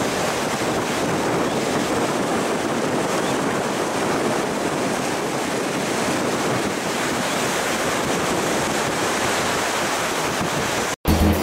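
Ocean surf washing on the beach, a steady rush of water with wind buffeting the microphone; it cuts off suddenly near the end.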